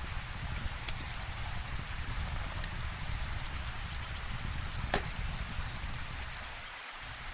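Steady rain, with a few sharp crackling pops from a wood fire, the loudest about five seconds in.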